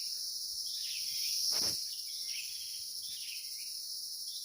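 Steady high-pitched drone of forest insects, with a bird giving short curving calls about once a second. A brief rustling swish about a second and a half in.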